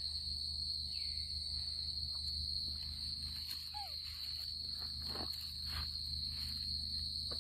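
Steady, high-pitched chorus of night insects over a low rumble, with a few short rustles and a brief squeak about halfway through.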